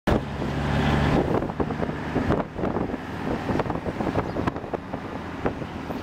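A vehicle driving along a road: low engine hum and road noise, with wind buffeting the microphone in irregular thumps. The steady engine hum is clearest in the first second.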